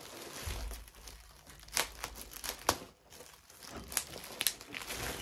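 Clear plastic polybag around a pair of jeans crinkling and rustling as it is handled, with several sharper crackles.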